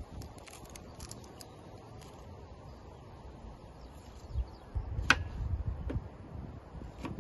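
A kitchen knife peeling a dry-skinned onion, with faint crisp ticks early on. A little past halfway, a knife cutting the onion on a wooden chopping board: low knocks and one sharp click.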